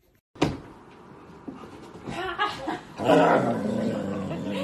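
Husky growling and grumbling in play, getting louder about three seconds in.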